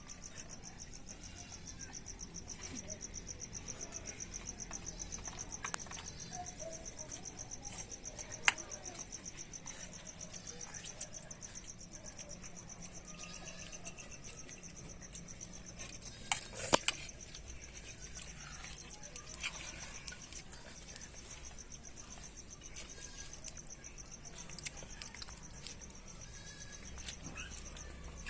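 Crickets chirping in a steady, high, fast-pulsed trill, with a few sharp clicks or knocks, the loudest one about eight seconds in and a short cluster at about sixteen seconds.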